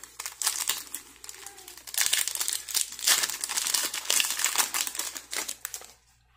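Foil wrapper of a Pokémon card booster pack crinkling as it is handled and torn open by hand, busiest in the middle and stopping shortly before the end.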